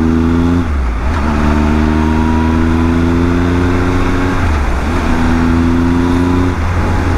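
Triumph Tiger 1200's inline three-cylinder engine accelerating through the gears: its pitch climbs, drops at an upshift about half a second in, climbs again, drops at another shift about four and a half seconds in, climbs once more and eases off near the end. Wind rush on the microphone runs underneath.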